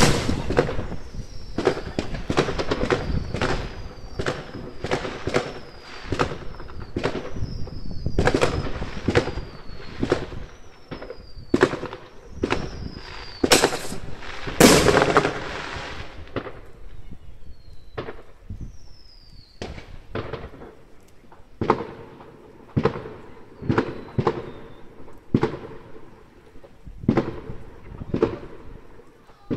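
Fireworks going off: a rapid run of aerial bursts and bangs, dense through the first half with the two loudest about halfway, then sparser, with short falling whistles between the bangs.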